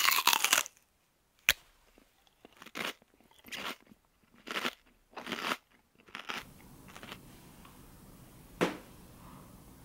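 Short crunching noises, one every second or so, then faint room tone with a sharp click near the end.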